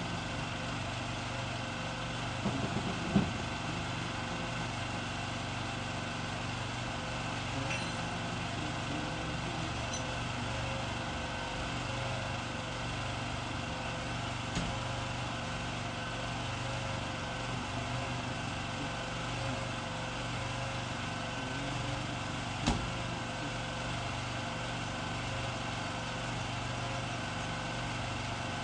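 Truck engine idling steadily, with a few short knocks.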